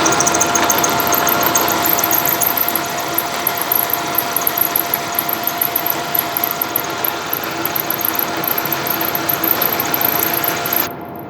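An electric power tool running steadily with a constant motor whine and a high crackling hiss, in one continuous take that cuts off abruptly near the end.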